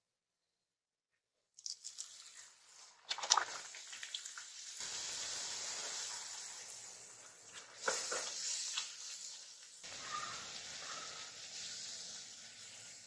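Wheat-flour puri deep-frying in hot oil, with a steady sizzle and spitting. The sizzle starts about a second and a half in, with sharper crackles a few seconds in and again near the middle.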